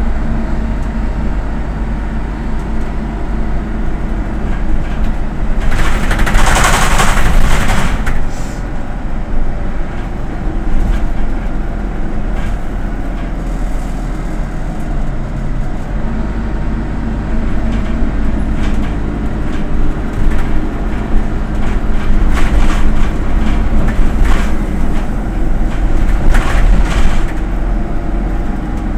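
Autosan Sancity M09LE city bus heard from inside while under way: a steady low engine and road rumble. A loud hiss comes about six to eight seconds in, and there are shorter rattles and knocks later on.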